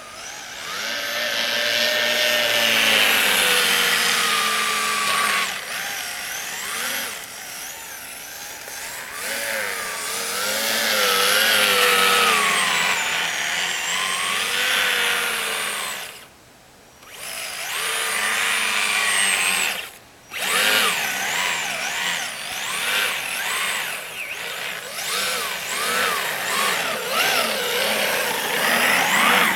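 Kyosho Blizzard tracked RC snowcat's brushed electric motor and drivetrain whining as it is driven, the pitch rising and falling with the throttle. It cuts out briefly twice, about sixteen and twenty seconds in, when the throttle is let off.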